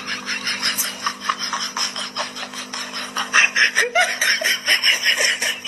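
A person laughing hard in quick breathy bursts over a steady low hum.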